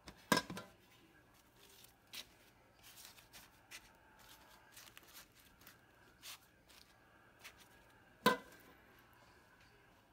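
A stainless steel stockpot lid knocks against the pot, then dry corn husks rustle faintly as tied tamales are shifted in the pot. Near the end the metal lid clanks down onto the pot with a brief ring.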